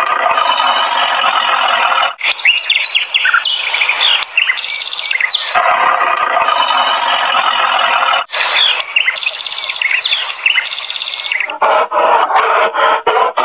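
Birds chirping and twittering loudly and continuously, the same stretch of birdsong repeating about every five and a half seconds as a loop. Near the end it changes to a choppier passage broken by short gaps.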